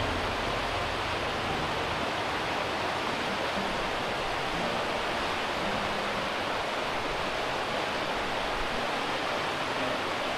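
Waterfall plunging over a rock ledge: a steady, even rush of falling water.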